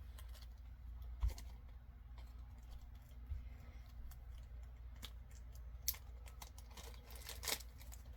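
Small clicks and taps of enamel pins and their packaging being handled, with a sharp knock about a second in and a brief rustle near the end, over a low steady hum.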